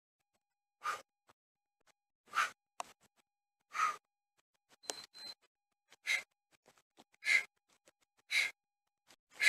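A man breathing hard from exertion during a high-intensity bodyweight exercise: short, sharp exhalations, regular at a little more than one a second.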